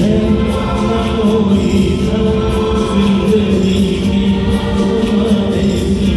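Live band music with a male singer's vocals: long held notes over a steady drum beat, heard from the audience in a concert hall.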